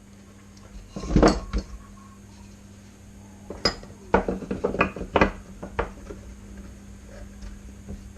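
Hard objects being handled and set down on a workbench: a cluster of knocks about a second in, then a quick string of sharp taps and clinks a few seconds later, over a steady low hum.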